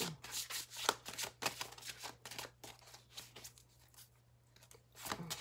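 A deck of large oracle cards being shuffled by hand, the cards slipping and snapping against each other in quick crisp clicks about four a second. The clicks fade out for about a second and a half, then start again near the end.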